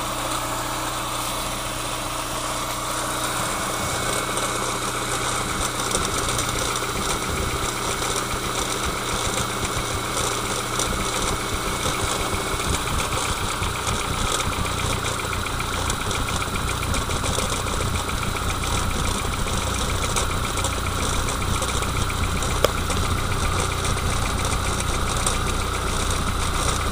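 Car running at idle with a fine, rapid rattle, the extraneous noise that the owner puts down to the gearbox.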